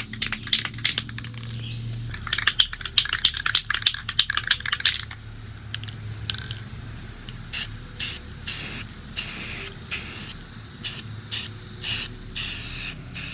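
A Rust-Oleum 2X Coverage gloss white spray-paint can: first a rapid rattling for about five seconds, like the mixing ball knocking inside as the can is shaken, then, after a short pause, a run of separate spray hisses, most short taps and two about a second long, as the paint goes on.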